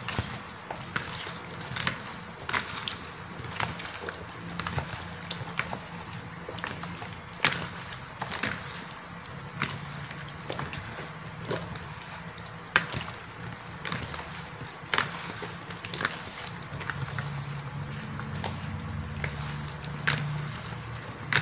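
Hands kneading cut catfish pieces with chillies, ginger and turmeric water in a plastic bowl: irregular wet squelches, sloshes and clicks of the fish and spices being squeezed and turned over.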